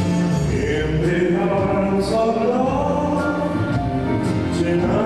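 Ballroom dance music for a standard-section round, with a singing voice carried over a steady accompaniment.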